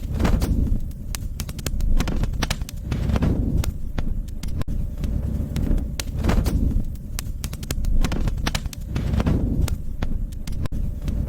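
Wood fire burning in a fireplace, crackling with many sharp pops and snaps over a low rumble of flame that swells and eases every few seconds.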